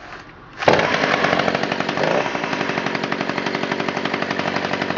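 Stihl 015 AV two-stroke chainsaw engine cuts in suddenly less than a second in and keeps running steadily, loud, with a rapid even firing beat.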